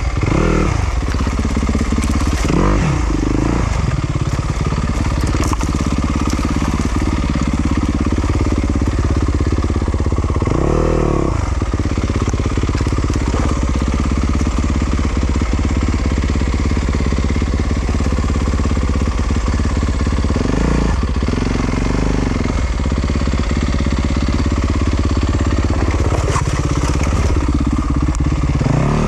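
Yamaha YZ250FX single-cylinder four-stroke dirt bike engine running at low revs, picking up in brief throttle bursts about five times, with scattered clatter and knocks from the bike working over rough ground.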